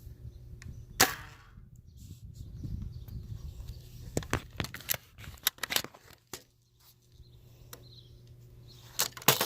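BB gun firing: a sharp crack about a second in, a run of smaller clicks in the middle, and two more cracks in quick succession near the end.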